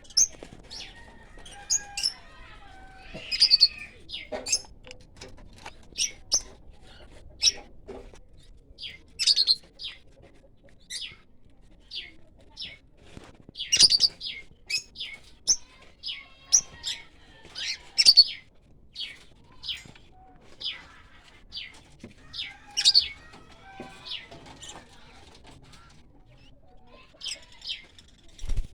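Parrots calling: many short, shrill, high-pitched chirps at an irregular pace, with a brief lull near the end.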